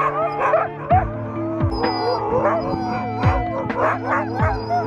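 A team of harnessed huskies barking, yipping and howling excitedly at the start of a sled run. Background music with sustained chords and a steady beat plays over them.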